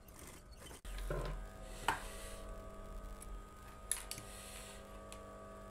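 Electric sewing machine's motor humming steadily from about a second in, with two sharp clicks and brief rustles as the fabric and thread are handled.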